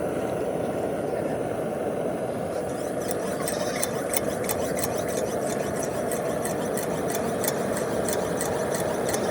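Rapid light clicking of a cooking utensil, several clicks a second, starting about three seconds in, over a steady low rumbling background noise.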